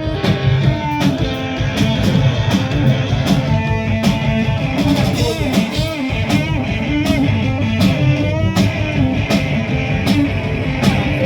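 A rock band playing live: electric guitar over a steady drum beat, with notes bending in pitch.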